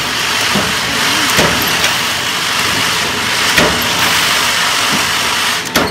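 Automatic bolt hot-forging line running with a steady, loud machine noise. A sharp knock comes roughly every two seconds as the press strikes the red-hot bolt blanks.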